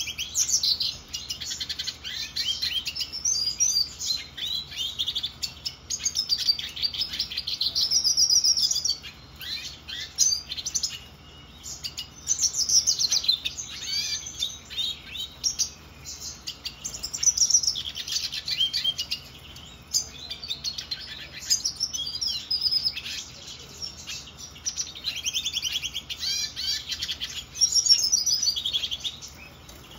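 Black-headed siskin (Spinus notatus) singing: long runs of high, rapid twittering song in phrases several seconds long, broken by short pauses.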